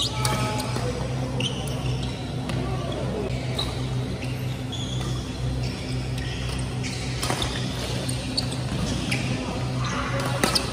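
Badminton rally in a large hall: rackets striking the shuttlecock with a few sharp cracks, the loudest near the end, and sports shoes squeaking in short high chirps on the court floor, over a steady low hum.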